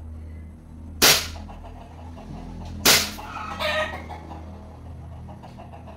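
9mm airsoft pistol fired twice, about two seconds apart: two sharp cracks.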